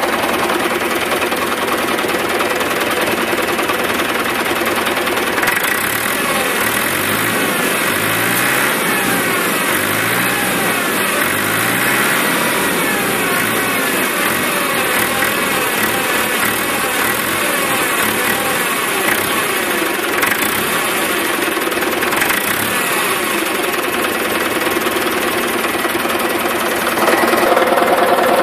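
Diesel engine of an IMR-Rakovica 65 tractor, running steadily at idle.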